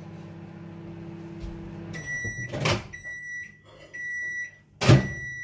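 Microwave oven running with a steady hum that stops about two seconds in as its one-minute heating cycle ends. The end-of-cycle beeper then sounds in a series of short, steady, high beeps, each about half a second long. Two sharp knocks fall among the beeps, the louder one near the end.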